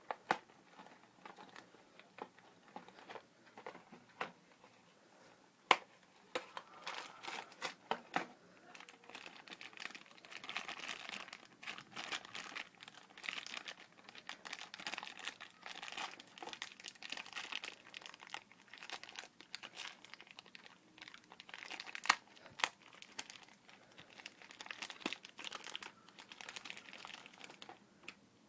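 Plastic and cardboard toy packaging crinkling and rustling as it is opened by hand, with a few sharp clicks and taps among the rustling.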